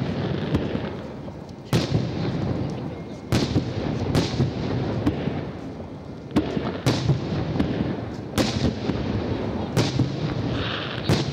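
Aerial fireworks shells bursting overhead: about nine or ten sharp bangs, spaced roughly one to two seconds apart, each trailed by a low rolling rumble and echo.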